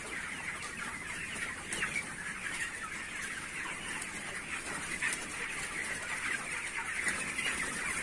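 Hundreds of broiler chickens calling together: a steady, dense chatter of many overlapping peeps and clucks.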